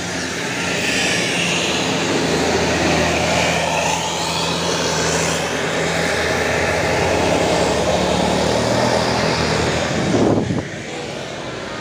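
Diesel tour bus engine running steadily under load as the bus drives up the slope, a constant low hum with engine noise over it. About ten and a half seconds in there is a brief rush of noise, after which it is quieter.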